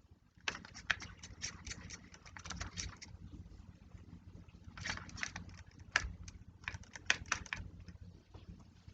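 Paintbrush working over salt-crusted watercolor paper: quick scratchy clicks and taps in two runs, the first lasting a couple of seconds and the second a few seconds later, over a steady low hum.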